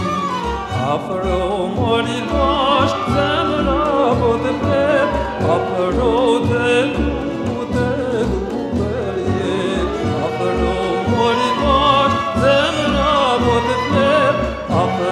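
Background music with a wavering melody over a steady beat.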